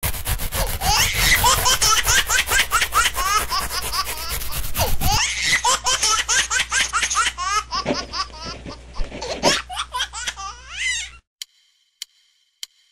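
Babies laughing and giggling in quick, high-pitched bursts, cutting off suddenly about eleven seconds in.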